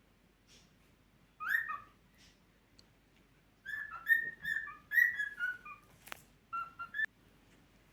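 Cockatiel whistling: one rising note, then a quick run of short whistled notes and a few more near the end, with a single sharp click in between.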